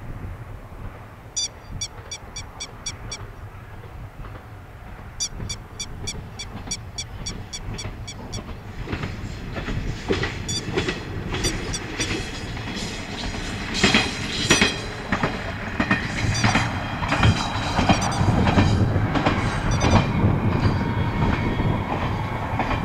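A single-car Tenryu Hamanako Railroad diesel railcar approaching and passing: the engine rumbles and the wheels clack over the rail joints, growing louder from about nine seconds in and loudest in the second half. Before it draws near, two rapid runs of high chirps sound.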